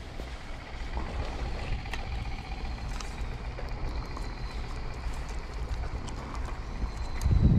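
Steady low rumble of road traffic on the bridge overhead, with a loud low thump near the end.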